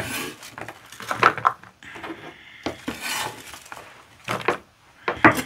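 Chopped onion being scraped up off a wooden cutting board with the flat of a knife blade and slid into a dish, with a sharp click at the start, a scrape after it, and scattered light knocks of the blade on the board and dish.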